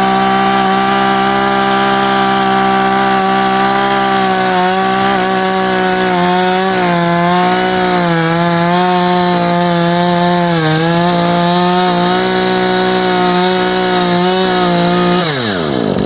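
Two-stroke chainsaw running at high revs while cutting into a log, its engine pitch dipping and wavering as the chain bites into the wood. Near the end the revs fall away sharply.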